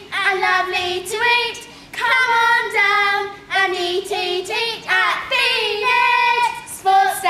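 Young girls singing a short song together without accompaniment, in quick phrases of held notes.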